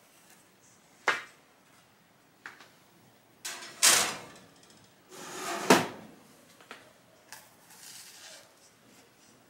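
Round metal cake pans being set into an oven: scrapes of pan against the wire oven rack and metallic knocks, two longer scrapes with the loudest clunk about six seconds in.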